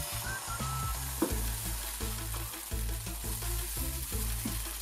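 Rice-and-coconut appam batter sizzling as it is poured into a hot appam pan, with a light knock about a second in and another near the end.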